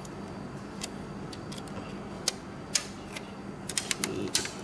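Protective plastic film being picked at and peeled off a kitchen machine's touchscreen: scattered crisp clicks and crackles, with a quick cluster of them near the end, over a faint steady hum.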